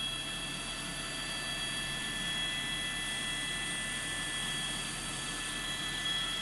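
News helicopter's turbine and rotors running steadily, heard through the crew's cabin microphone: an even rush with several steady high-pitched whining tones over it.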